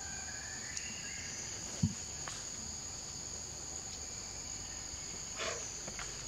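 Steady, high-pitched drone of insects, with a short soft thump about two seconds in.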